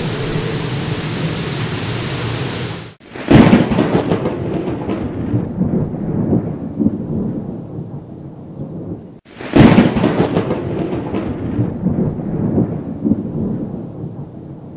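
Steady rain hiss for about three seconds, then two sudden thunderclaps about six seconds apart. Each is a sharp crack that fades into a long rolling rumble.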